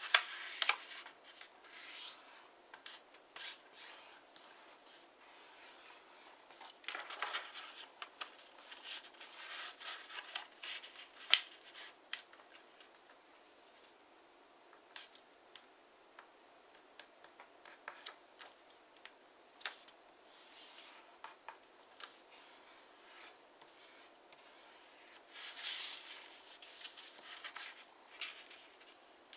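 A 15 cm square of TANT origami paper being folded and creased by hand: intermittent rustling and sliding of paper on a table, in bursts, with a few sharp crackles as folds are pressed flat.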